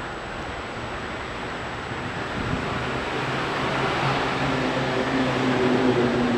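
A motor vehicle's engine hum coming in about two and a half seconds in and growing louder as it approaches, over a steady background hiss of outdoor traffic noise.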